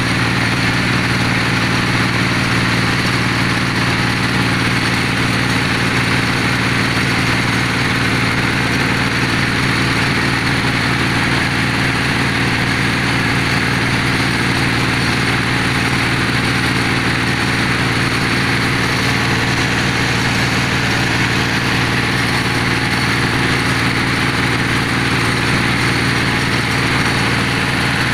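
Engine of a bore-well drilling machine running steadily at a constant speed.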